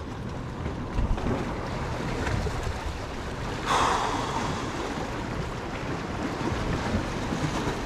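Wind buffeting the microphone over waves washing against rock-jetty boulders, with a brief louder rush of surf or wind a little past halfway.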